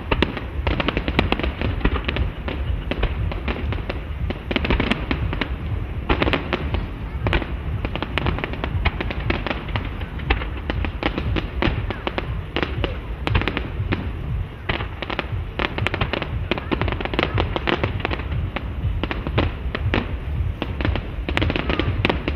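Fireworks display: a dense, unbroken run of bangs and crackling reports from bursting shells and ground fireworks.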